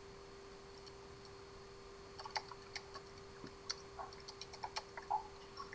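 Computer keyboard and mouse clicking in short irregular runs, starting about two seconds in, over a faint steady hum.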